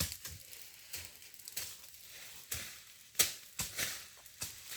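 A series of irregular sharp clicks and knocks, about ten of them, the loudest a little after three seconds in.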